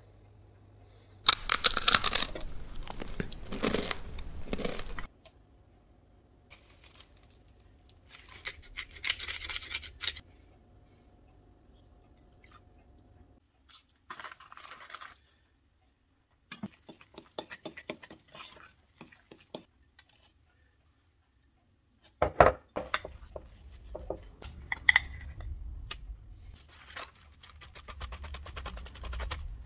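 A run of kitchen handling sounds: loud, crisp crunching of seeded chickpea-flour crackers for a few seconds near the start, a fork scraping and stirring in a glass bowl of batter midway, and plastic wrap crinkling under hands pressing dough onto a baking tray near the end.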